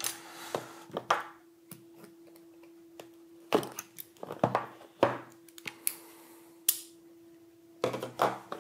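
A folding utility knife slicing the seal stickers on a cardboard phone box, heard as a series of short, sharp scrapes and knocks as the box is turned and cut, over a faint steady hum.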